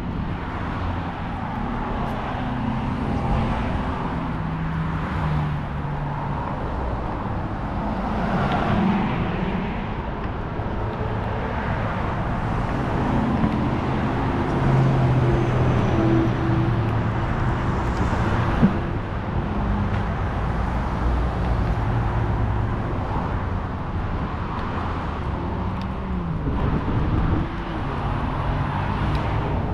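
Steady outdoor road-traffic noise: the low drone of vehicle engines rising and falling as cars pass, with one short sharp knock about two-thirds of the way through.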